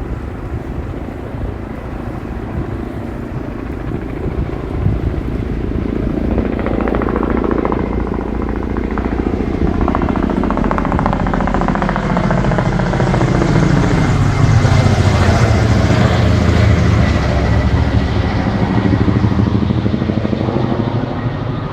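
Firefighting helicopter running at very low height, its rotor and engine noise growing louder from about six seconds in with sweeping tones that rise and fall as it moves close by. The sound is loudest in the second half.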